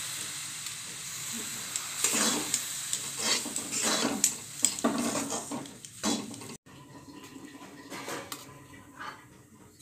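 A spatula scraping and stirring semolina in a frying pan over a steady sizzling hiss: a run of quick strokes, about three a second, then the scraping cuts off suddenly about two-thirds through, leaving a fainter hiss with a couple of light knocks.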